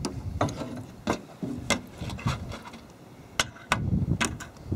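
A screwdriver and pliers working at the impeller hub of an opened water pump housing: irregular sharp metal clicks and taps, about a dozen of them.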